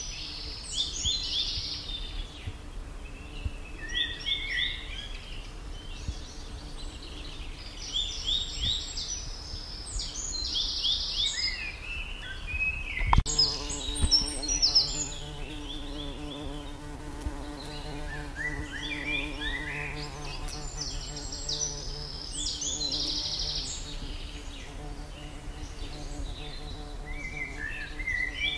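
A songbird singing short, rapid phrases of high descending notes, repeated every few seconds. About halfway through there is a single sharp click, and a low steady hum comes in for several seconds.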